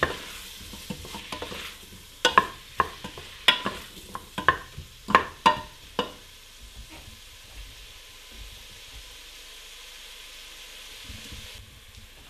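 Wooden spoon stirring chopped onion, pepper and tomato in a metal pot, knocking against the pot a dozen or so times in the first six seconds. After that the vegetables sizzle steadily in hot olive oil over high heat as they soften.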